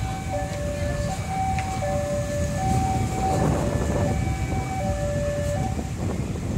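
Electronic level-crossing warning alarm sounding two tones, high and low notes alternating about every three-quarters of a second, over the low rumble of a slowly shunting diesel locomotive and road traffic; the rumble swells around the middle.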